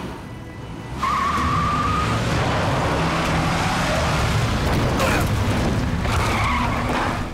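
Car accelerating hard, engine revving and tyres squealing and skidding. About five seconds in comes a sudden impact as the car hits a pedestrian, then the tyres squeal again.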